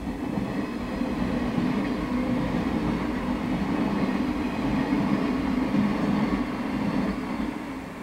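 Yellow electric multiple-unit commuter train passing by, a steady running rumble and hum that builds and then drops away as the last car clears near the end.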